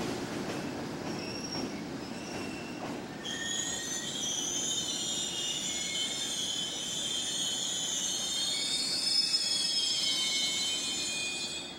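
JR Freight EH200 electric locomotive moving over the station tracks with a low rumble, then its wheels squealing: several high, wavering squeal tones start about three seconds in and carry on until the sound cuts off abruptly near the end.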